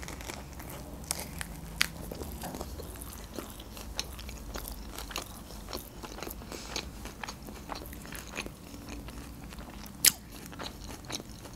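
Close-miked eating: a mouthful of rolled lahmacun on lavash being chewed, with many small crackles and clicks, two of them louder, about two and ten seconds in.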